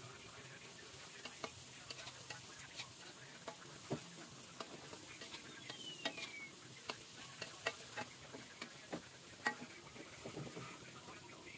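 Taro fritters frying in a wok with a faint sizzle, while a metal spatula turns them, clicking and scraping against the wok many times, with one longer scrape about halfway through.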